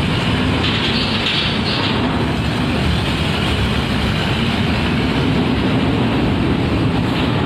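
Heavy vehicle engines running, a steady low rumble.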